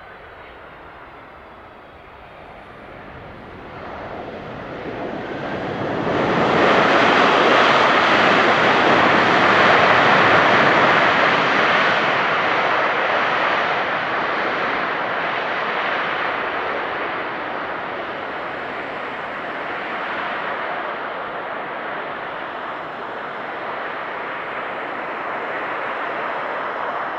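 Boeing 767-300ER's jet engines in reverse thrust just after touchdown: a broad rushing noise that swells about four seconds in, is loudest for several seconds, then slowly dies away as the airliner slows on the runway.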